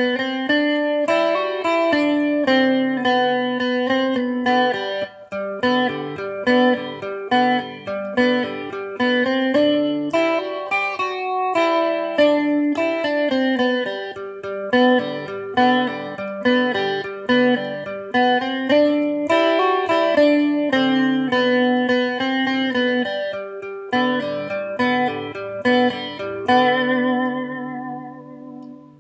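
Solo guitar playing a picked instrumental melody over bass notes, ending on a chord that rings and fades away near the end.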